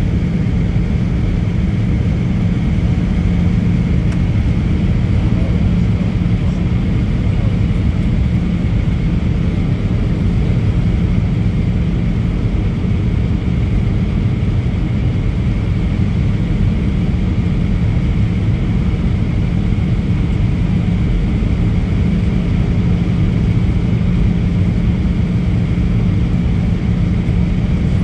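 Cabin noise inside an Airbus A320 airliner descending on approach: a steady rumble of jet engine and airflow with a steady low hum in it.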